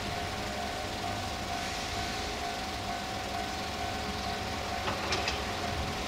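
Japanese railway level-crossing alarm ringing its steady electronic tone, over the low rumble of idling vehicles. A few sharp clicks come about five seconds in.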